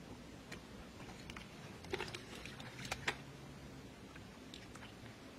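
Hands picking snails out of shallow muddy paddy water: a few small sharp clicks and wet sounds, about two seconds in and twice more around three seconds, over a low background hiss.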